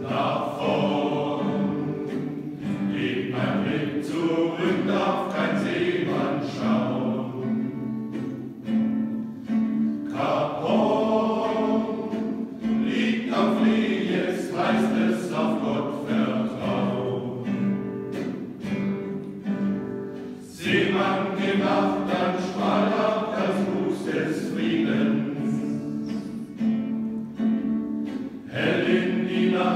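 Male voice choir singing a song in harmony, pausing briefly between phrases.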